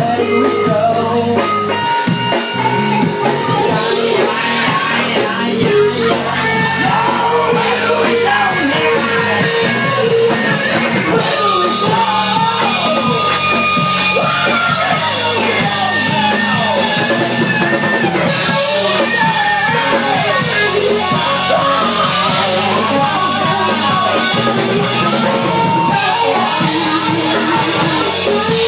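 Live rock band playing loud: electric guitars, drum kit and a singing voice.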